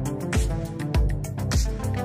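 Background music with a steady beat: a low kick drum about every 0.6 seconds under sustained chords.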